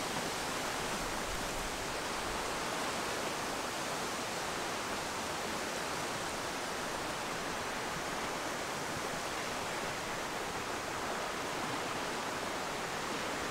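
Steady, even rushing hiss of open-air ambience, with no distinct events.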